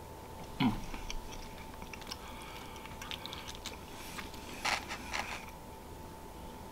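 A person quietly chewing a mouthful of tender curry goat, with a few soft clicks and scrapes about two-thirds of the way through as a plastic fork works in a styrofoam takeout container.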